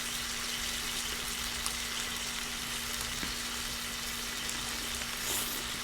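A steady, even hiss with a faint low hum underneath.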